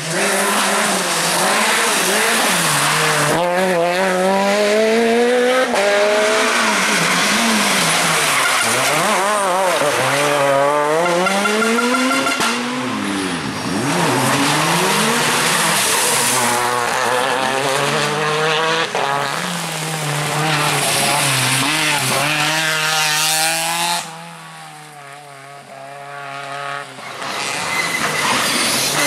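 Rally cars driven flat out on a tarmac stage, engines revving hard and falling away again and again through gear changes and corners, with tyres squealing at times. The sound drops away for a few seconds near the end, then the next car approaches.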